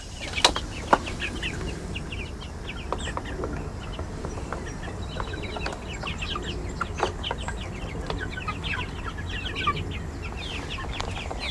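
Young hens clucking, with many short, high calls throughout and a few sharp taps.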